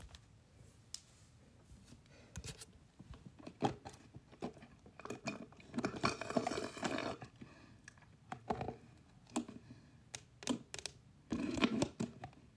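Sipping and slurping through a straw from an empty plastic cup, in short irregular pulls, with scattered clicks and rustles from handling the cup. The longest slurp comes about six seconds in, another near the end.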